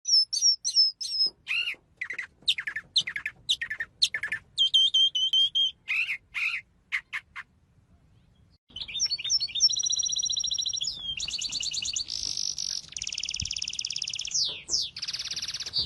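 Songbird singing: a run of separate whistled chirps and sweeping notes, a short pause, then long fast trills of rapidly repeated notes from about nine seconds in.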